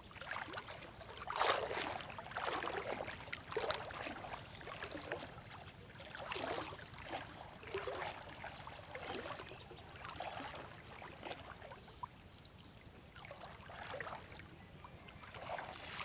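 Legs wading through river water, a sloshing swish with each stride, about one a second.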